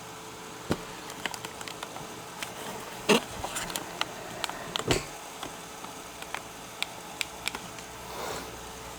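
Scattered small clicks and light knocks of an Asus P553M laptop's plastic and metal parts being handled during disassembly, with a louder knock about three seconds in and another about five seconds in, and a brief soft rustle near the end.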